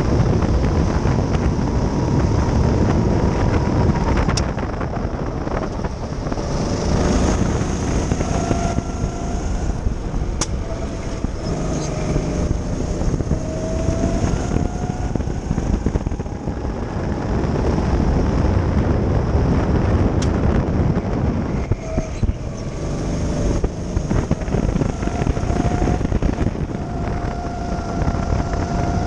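Go-kart engine running hard, its pitch climbing again and again as it accelerates out of corners and dropping as it eases off, with wind rushing over the microphone.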